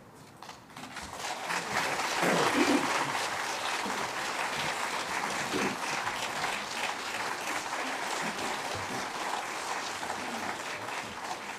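Crowd applauding, the clapping swelling within the first second and then carrying on steadily, with a few calls from the crowd around two to three seconds in.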